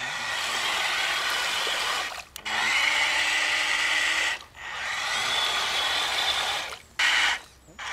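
Electric motor and gearbox of a scale RC crawler truck whining under throttle while its wheels churn through deep mud. It comes in three long bursts with short pauses between them, then a brief blip near the end.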